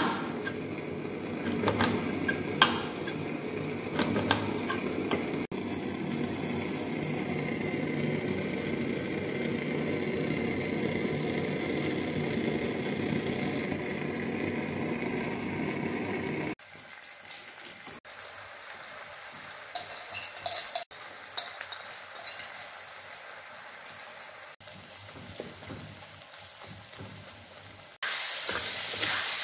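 A blade knocks and clicks against a wooden board as an eel is cut into pieces. Near the end, the eel pieces hit hot oil and onions in an iron wok and sizzle loudly.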